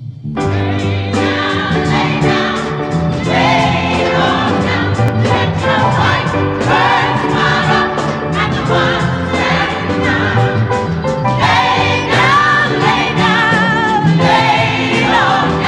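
Gospel choir singing sustained harmonies with vibrato over a steady low instrumental backing.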